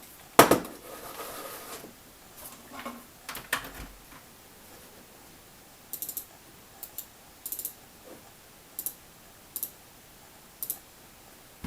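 Plastic computer mouse being handled and put back together: a sharp knock, some scraping and clattering, then a row of short, crisp clicks about once a second.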